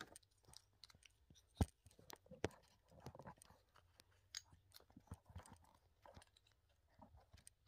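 Faint, scattered clicks and taps of small plastic toy pieces being handled, the sharpest about one and a half seconds in.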